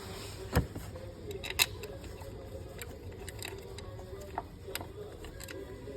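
Hand tools and screws clinking against metal while a new water pump's screws are fitted: scattered clicks, with two sharper knocks about half a second and a second and a half in, over a faint steady hum.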